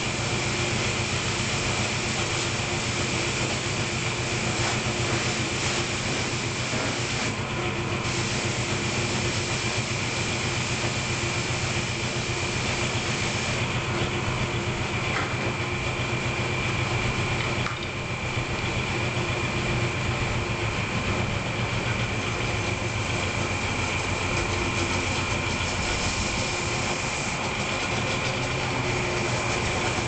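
Pressure washer running steadily, its motor and pump humming under the hiss of the high-pressure water spray on concrete. The hiss dips briefly twice.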